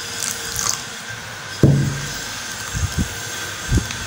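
Plastic spoon stirring a watery flour batter in a glass bowl, a wet mixing sound. A sharp thump comes about one and a half seconds in, and a few softer knocks follow near the end.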